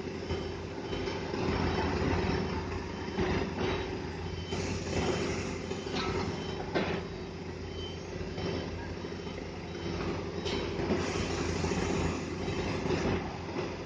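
Heavy diesel engine of a truck crane running steadily under load, with scattered metallic clanks and knocks.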